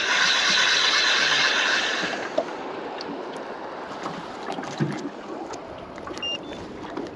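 Fishing line rushing off a fishing reel as the rod is cast, for about two seconds. Then water lapping against a small boat.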